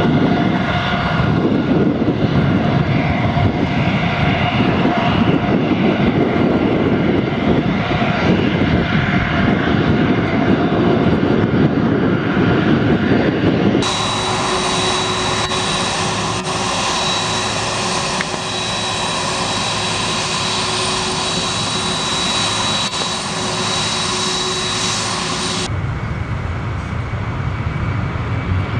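Airliner jet engines at close range in three cuts: first a Tupolev twinjet freighter's engines with a heavy rumble, then about 14 seconds in a Boeing 747 freighter's engines taxiing with a steady high whine over the rumble, and near the end an Airbus A310's engines with a low rumble.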